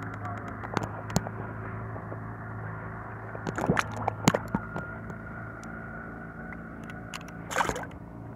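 Water splashing and sloshing beside a kayak as a fish held on a lip grip is lowered into the water and released, with a few handling knocks and a splash near the end, over a steady low hum.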